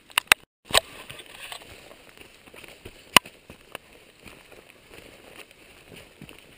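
Faint, steady rustle of someone walking through wet forest undergrowth, with a few sharp clicks: two right at the start, a brief dead gap, then one loud click about three seconds in.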